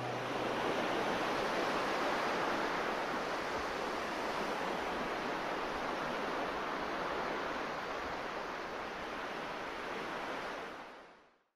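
A steady, even rushing hiss, like surf or wind noise, that fades out just before the end.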